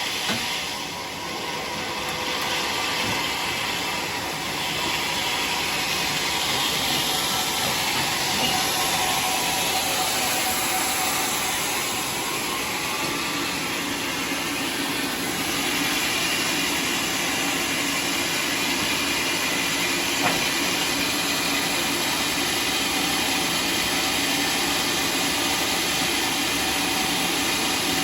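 Sawmill saw running steadily through a teak log, a loud, even hiss of cutting with a faint hum of machinery under it; the level dips briefly about a second in.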